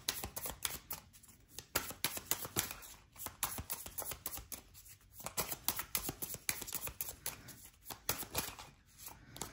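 Tarot cards being shuffled overhand from hand to hand: a quick patter of card clicks and slaps that comes in bunches with short pauses between them.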